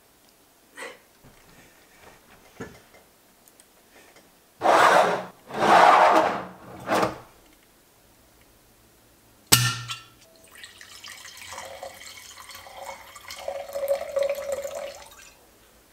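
A few light clicks and handling noises, then loud rustling and scraping for about two seconds, and a single sharp knock. Red wine is then poured from a bottle into a large wine glass, gurgling for about five seconds.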